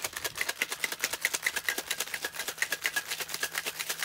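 Ice cubes rattling inside a metal cocktail shaker that is being shaken hard, a rapid, even rhythm of sharp clacks, chilling the drink.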